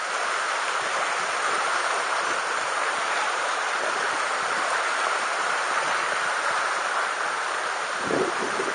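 Mountain stream rushing over rocks, a steady even wash of water, with a brief low bump about eight seconds in.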